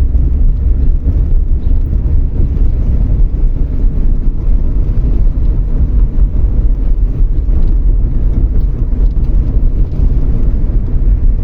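Car driving over a road surface freshly sprinkled with loose grit: a steady, loud rumble of tyres and road noise with a fine gritty texture.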